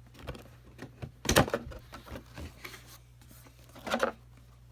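Cardboard phone box being opened by hand: rustling and scraping of the box and packaging, with a louder burst about a second in and another near the end, over a steady low hum.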